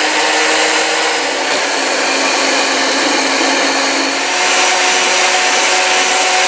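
Moulinex electric hand mixer running steadily, its beaters whipping egg whites toward stiff peaks: a loud, even motor whir.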